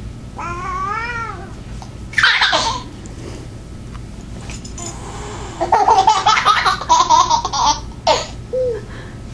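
Toddler giggling, squealing and babbling while playing with a cat. There is a sharp squeal a little after two seconds and a run of loud giggles in the second half.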